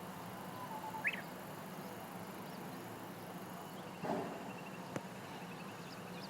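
Japanese bush warbler singing: a short low whistle, then a sharp note sweeping up high about a second in. From about four seconds comes a quick run of short high notes, together with a dull knock and, a second later, a sharp click.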